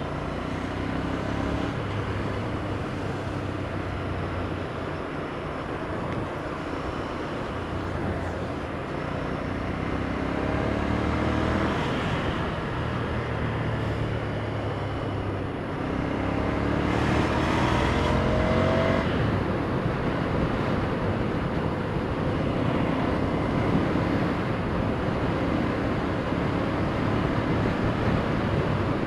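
Motorcycle engine running under way, with road and wind noise. The revs climb twice as the bike accelerates, about a third and about two-thirds of the way through.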